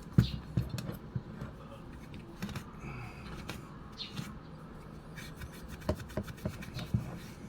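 Microfiber cloth with alcohol being scrubbed hard inside a vintage movie camera's battery compartment to clean it out: uneven rubbing and scraping, broken by scattered sharp clicks and knocks, the loudest about a fifth of a second in and near the end.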